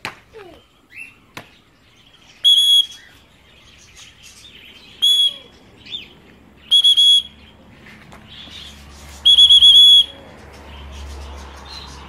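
A loud, level, high-pitched recall whistle sounds close by, four times: a single blast, a short one, then three quick pulses and a run of about five pulses, calling a free-flying cockatiel back to the hand. Faint chirping calls come between the whistles, and a low wind rumble rises near the end.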